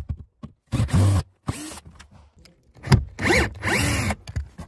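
Torx screws being turned out of the glove box underside with a screwdriver, a scraping, squeaky turning sound in several short spells whose pitch rises and falls.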